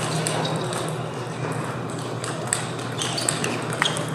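Table tennis balls clicking off bats and tables at several practice tables, scattered irregular hits, each with a short high ping. Most come in the second half, over a steady low hum of the hall.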